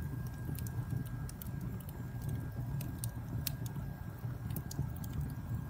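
Small wood campfire crackling, with irregular sharp pops and snaps over a low steady rumble.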